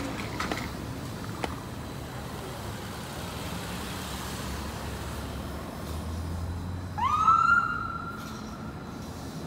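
Street traffic noise, then about seven seconds in a siren wails: one quick rise in pitch that holds steady for about a second and a half and fades.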